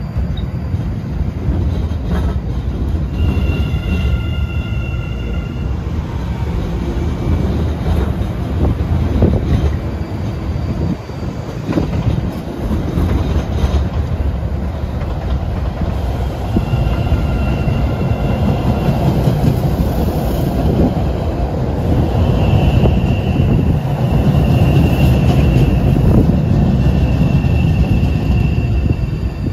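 MBTA Orange Line subway train rolling through the station with a steady rumble of wheels on rail. High-pitched wheel squeal comes in briefly a few seconds in and again midway, then holds through most of the last part as the rumble grows louder.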